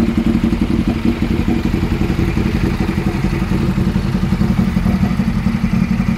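A vehicle engine idling close by, running steadily with a fast, even low throb.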